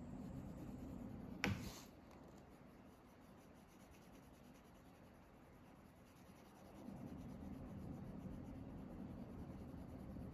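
Pen scratching across paper in short drawing strokes, with a single sharp click about one and a half seconds in; the strokes stop for a few seconds and start again near the end.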